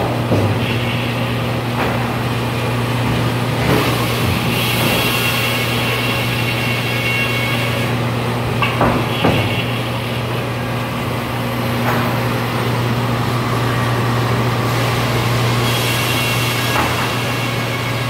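Helle circular sawmill with top saw running on a large red oak log: a steady motor hum throughout. A higher-pitched saw noise comes up twice as the blades cut, and short knocks from the carriage and log handling are scattered through it.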